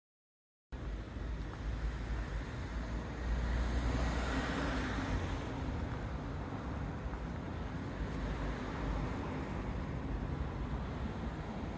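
Old commercial air-conditioner outdoor units running: steady fan noise over a deep hum, cutting in abruptly just under a second in, a little louder for a couple of seconds after that.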